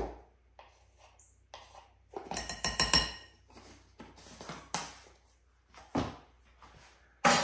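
Metal measuring spoon clinking and tapping against the baking-powder container and the mixing bowl as a teaspoon is measured out. The clicks and knocks are separate, with a brighter, ringing clink about two and a half to three seconds in and a sharp knock near the end.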